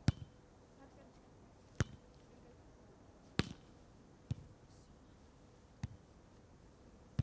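A beach volleyball struck by hand in play, six sharp slaps about one to one and a half seconds apart, as in a rally of passes, sets and attacks.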